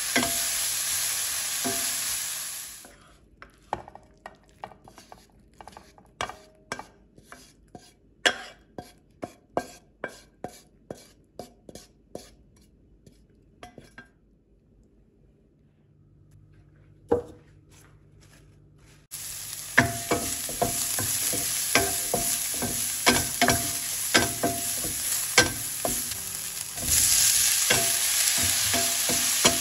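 Sliced shiitake mushrooms, then crumbled vegetarian chicken, sizzling in a nonstick frying pan while being stirred and scraped with a wooden spatula. A few seconds in the sizzle stops, giving way to a run of separate light clicks and knocks and then a quiet stretch, before the frying and stirring start again about two-thirds of the way through.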